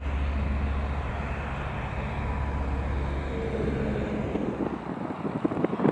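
Light propeller aircraft's piston engine droning steadily as the plane passes overhead. About five seconds in the drone fades and gusts of wind buffet the microphone.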